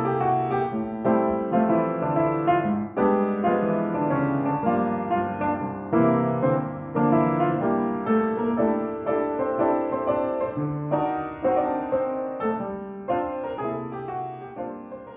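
Background piano music, a melody over chords, getting quieter near the end.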